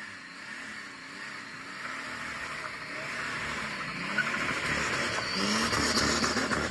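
Car engine and road noise, growing steadily louder over several seconds.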